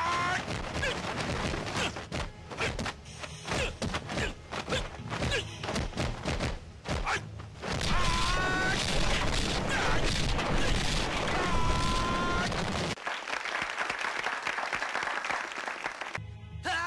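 Martial-arts fight sound effects: a rapid string of punch and kick impacts, with shouted yells partway through.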